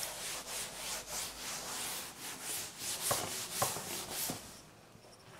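A cloth being rubbed over a chalk blackboard to erase it: quick scrubbing strokes, about three a second, that stop about four and a half seconds in.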